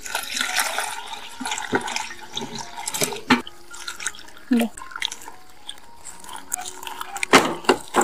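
Water poured into a plastic bowl of dried shrimp, then a hand swishing and rubbing the shrimp in the water, with splashes and clicks. A few sharp knocks come near the end.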